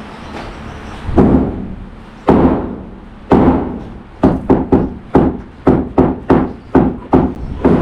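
Hammering during demolition of a kitchen: three heavy blows about a second apart, then a faster run of about a dozen strikes, roughly three a second.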